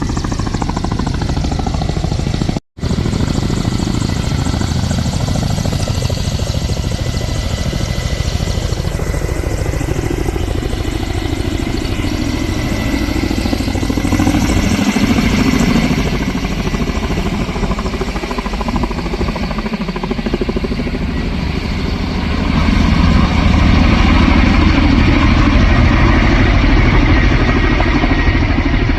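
Helicopter taking off: a steady turbine whine over loud rotor noise. It cuts out for an instant near the start and grows louder about 22 seconds in.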